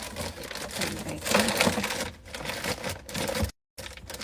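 Rapid clicks, taps and rustling of food packages and plastic containers being handled and moved about on refrigerator shelves, with a brief dropout in the sound near the end.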